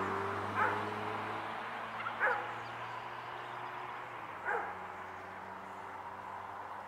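Three short animal calls about two seconds apart, over the low steady hum of a passing vehicle that fades out about four seconds in.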